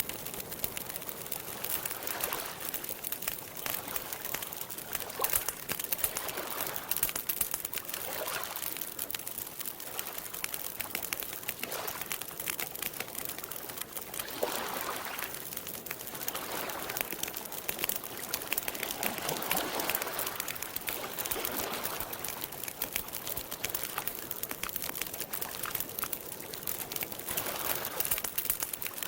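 Campfire crackling with many small snaps, over gentle water lapping at a lakeshore that swells every few seconds.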